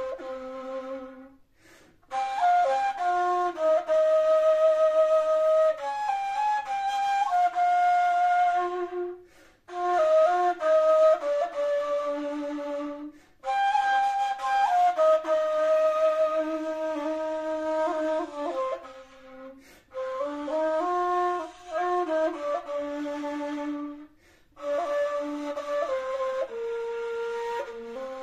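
Kaval, a long end-blown wooden flute, playing a solo melody of held notes with small ornaments. The melody comes in phrases broken by short pauses for breath.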